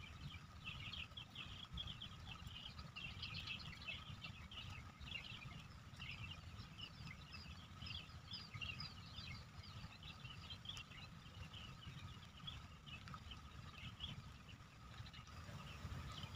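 Faint swamp ambience: a dense chorus of short, high chirping calls throughout, over a steady faint high tone and a low rumble.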